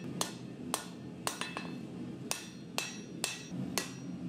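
Hand hammer striking hot Damascus steel on an anvil while forging a chef's knife blade: a steady series of sharp blows, roughly two a second.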